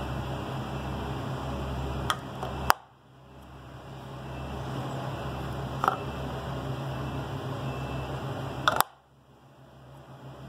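Sharp plastic clicks, about five, as a green plastic handle cover is pushed onto and pulled off a breaker control switch on a metal panel; the loudest come about two and three-quarter seconds and nine seconds in. A steady low hum runs underneath and briefly drops away after each of the two loudest clicks.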